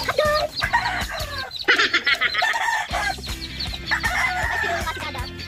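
Fighting roosters crowing, with clucking between the crows.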